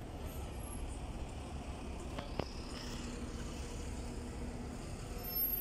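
Low, steady engine rumble of a NefAZ 5299.40 city bus rolling slowly past close by. There is one short click about two and a half seconds in.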